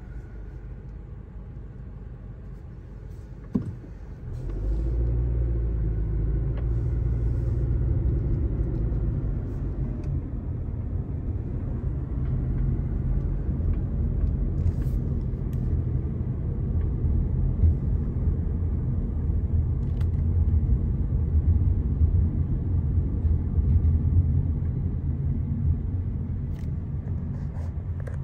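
Low, steady rumble of a car's road and engine noise heard from inside the cabin while driving, growing louder about four and a half seconds in, with a single click shortly before.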